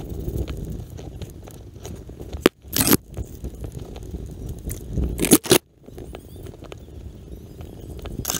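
Cherry tree branches and twigs crackling and scraping as the climber moves through them. There are sharp cracks about two and a half seconds in and again about five seconds in.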